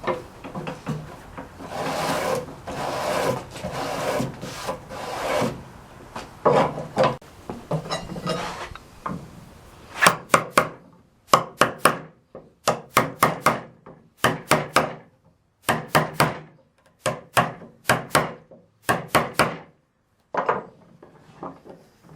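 Chisel scraping and paring along a wooden board to smooth out the nubs left in a dado cut. From about ten seconds in this changes to a hammer striking the chisel in quick pairs and triples of sharp taps.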